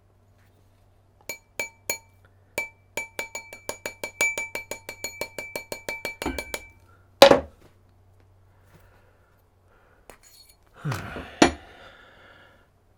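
A small hammer taps metal quickly and lightly, about five strokes a second, each stroke ringing at the same few pitches. A loud thud follows, then two more thuds a few seconds later.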